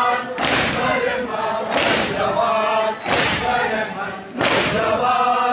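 A crowd of men chants a noha in unison while beating their chests together (matam), the slaps landing all at once about every second and a quarter. There are four loud strikes, with the sung refrain between them.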